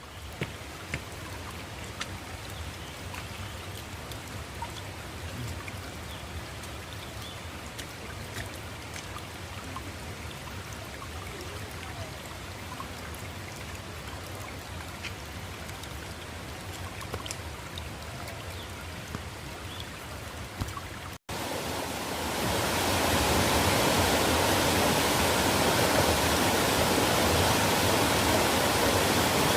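Mountain valley stream running, a steady rush of water. After an abrupt cut about two-thirds of the way through, the rush is louder and fuller.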